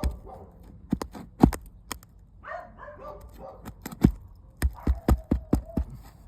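Sharp, irregular knocks and scrapes of a hand tool working under an asphalt roof shingle, prying it up to free its nail without tearing the shingle through the fastener. A dog barks briefly around the middle.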